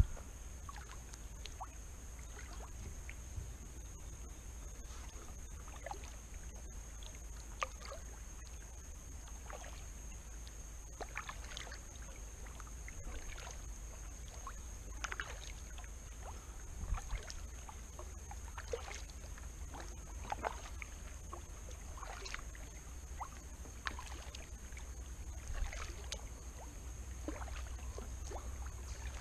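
Kayak paddle strokes in calm water: the blade dipping and pulling, with small splashes and drips every second or two over a low steady rumble.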